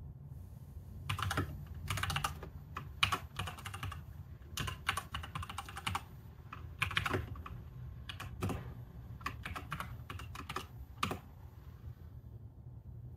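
Typing on a computer keyboard: irregular runs of keystrokes for about ten seconds, stopping about two seconds before the end, over a low steady hum.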